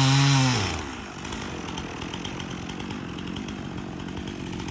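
Chainsaw running at high revs, then the throttle released about half a second in so the pitch drops away, and the saw idles steadily for the rest of the time.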